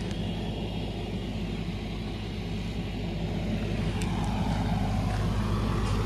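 Generator engine running steadily, a low hum that grows gradually louder.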